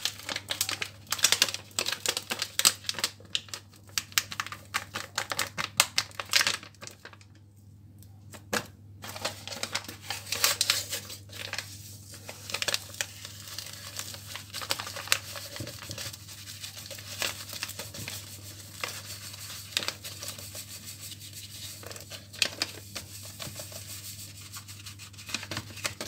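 Packets of whipped-cream powder crinkling and being torn open, a dense run of crackly rustles, then softer rustling as the powder is tipped into a glass cup.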